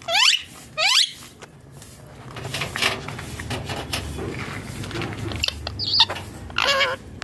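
Indian ringneck parrot squawking: two loud calls falling sharply in pitch in quick succession, then scratchy rustling and clicking, with a short call and a warbling call near the end.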